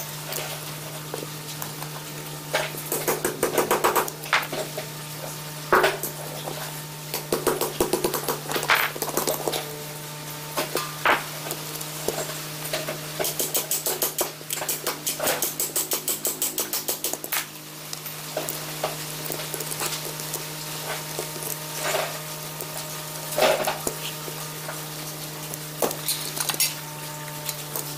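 Metal clicking and clinking from hand tools working at the rusty gear housing of an antique two-speed enclosed breast drill, with several spells of rapid, even clicking. A steady low hum runs underneath.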